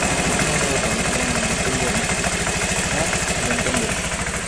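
Honda Vario 110 single-cylinder scooter engine idling steadily. The tick-tick of the faulty tensioner is gone now that the tensioner has been replaced.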